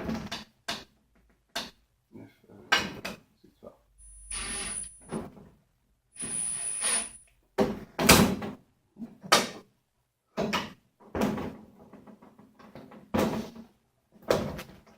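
Sharp clicks and knocks of screws, tools and metal panel parts being handled and fitted, with two short runs of a small electric driver or drill, about a second each, around four and six seconds in.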